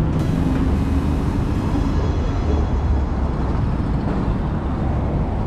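Steady city street traffic noise with a deep low rumble.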